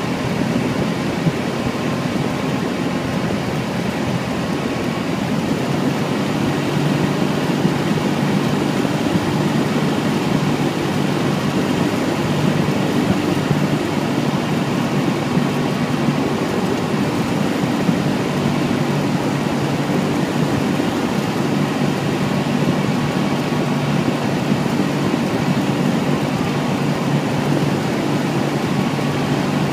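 Cessna 172's four-cylinder piston engine and propeller running steadily, heard from inside the cockpit on final approach.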